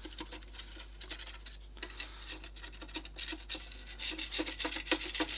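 Knife blade scraping paint off a bakelite radio case in quick, light repeated strokes, louder from about four seconds in.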